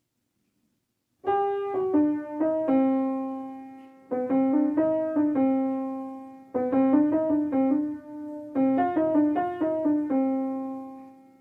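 Piano music after about a second of near silence: four short phrases of quick notes, each ending on a held note that dies away.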